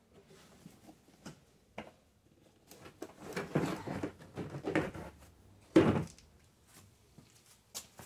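Plastic driver's door trim panel being worked loose and lifted off the door: small scattered clicks, then a stretch of rattling and scraping about three to five seconds in, and one sharp knock about six seconds in.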